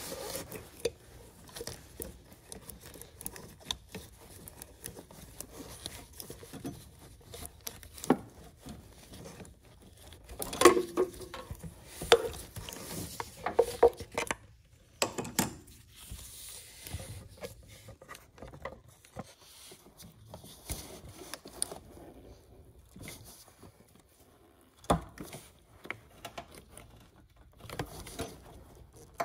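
Rubber heater-core hose being twisted and worked off a rusty coolant pipe with locking pliers and gloved hands: irregular clicks, creaks, scrapes and glove rustle, with a cluster of sharper knocks about halfway through and another single knock near the end.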